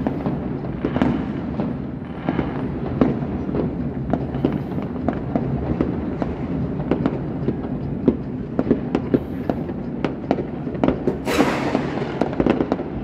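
Fireworks going off across a city: a steady, irregular run of many bangs and pops of different loudness, with a bigger burst about eleven seconds in that trails off over a second.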